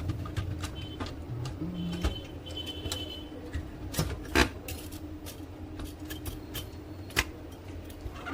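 Irregular clicks and knocks of plastic and metal printer parts being handled and fitted back into place, two louder knocks in the second half, over a steady low hum.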